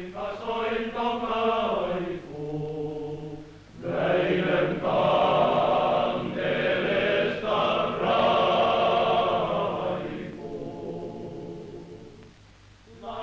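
Men's choir singing slow, held chords. It starts softly, swells to full voice about four seconds in, then fades on a quiet held chord near the end.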